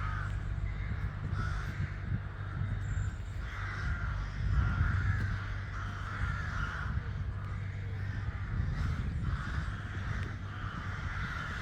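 A nesting colony of crow-family birds cawing in the trees: hoarse calls overlapping over and over, about one a second, over a steady low rumble.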